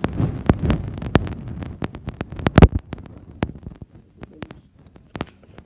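Handling noise on a phone's microphone: rubbing rumble, thumps and sharp taps as the phone is moved about, densest in the first three seconds with the loudest thump about two and a half seconds in, then a few scattered clicks.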